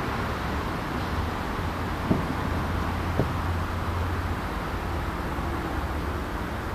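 Steady outdoor rumble and hiss, with two short thumps about two and three seconds in.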